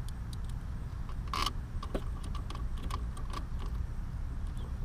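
Light scattered clicks and ticks of small bolts being handled and hand-threaded into a scooter's cooling fan, with a louder click about a second and a half in, over a steady low rumble.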